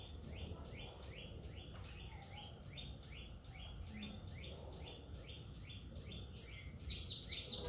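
Rhythmic high-pitched chirping from a calling animal, about three to four short chirps a second alternating between two pitches, louder near the end, over a low steady outdoor background noise.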